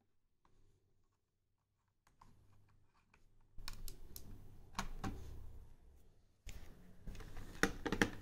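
Lenovo laptop keys and touchpad clicking: a few faint clicks after about two seconds of near silence, then louder separate clicks from about three and a half seconds in, with rustling as the phone is handled close to the laptop.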